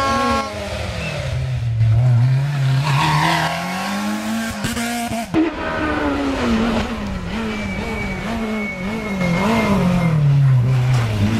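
Rally car engines at full throttle as the cars race past: the engine note climbs, drops sharply at each gear change or lift, and climbs again several times. The sound breaks off abruptly about five seconds in and a second car's engine takes over.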